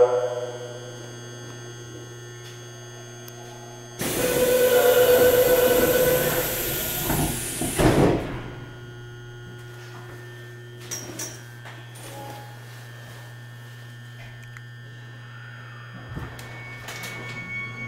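Steady electrical hum inside a stopped subway car. About four seconds in, the doors close with a few seconds of loud hissing and a steady warning tone, shutting with a thud about eight seconds in. Near the end there is a thump and the traction motors start a rising whine as the train moves off.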